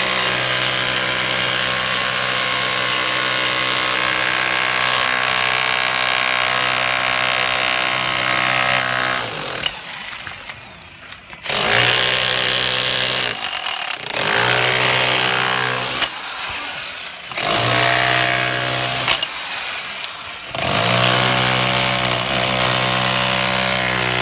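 A CLASIC CLA-5426 1010 W rotary hammer chiselling a groove into a wall. It runs steadily for about nine seconds, stops, then runs in four shorter bursts that each wind down as the trigger is let go.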